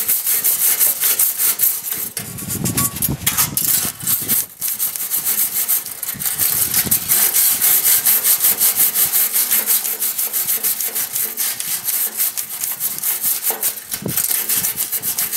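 Hand wire brush scrubbing back and forth on the rusty steel gas tank of a Ford F-150, cleaning down to bare metal around a leaking rust hole, in quick even strokes of about three a second.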